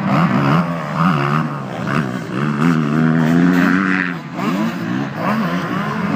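Several motocross motorcycle engines revving at once, their notes overlapping and rising and falling as the riders work the throttles.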